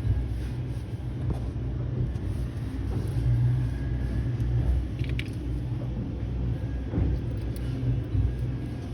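Steady low background rumble, with a short sharp click about five seconds in.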